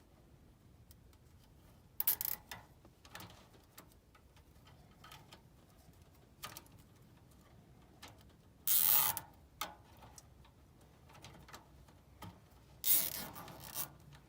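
Scattered clicks and rustles of hands handling furnace wiring at the control board, pushing on connectors and moving the motor leads, with a louder scraping rustle about nine seconds in and another near the end.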